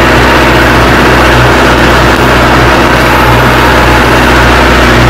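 Mahindra Arjun Novo 605 tractor's 57 hp turbo diesel engine, with a modified fuel pump, running steadily under load as it pulls a disc harrow through the soil.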